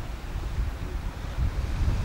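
Wind buffeting the microphone with an uneven low rumble, over small waves washing onto a sandy shore.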